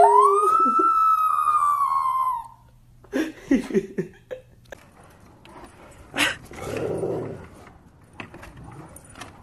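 Small long-haired dog howling: one long howl that sweeps up in pitch and holds, breaking off about two and a half seconds in, followed by a few short yelps. Later, much fainter, a sharp click and a short muffled noise.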